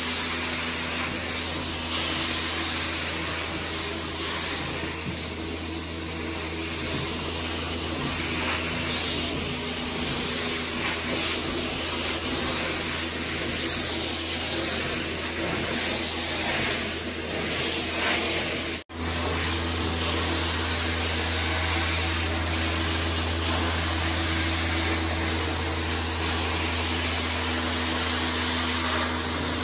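Hot-water carpet extraction wand spraying and sucking water through carpet tiles: a steady hiss of spray and suction with a steady machine hum underneath. The sound breaks off for an instant about two thirds of the way through, then carries on as before.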